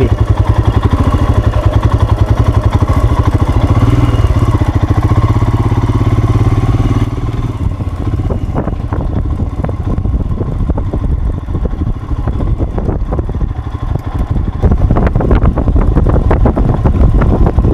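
Motorcycle engine running under way, with a steady pulsing note. It eases off about seven seconds in and picks up again near the end.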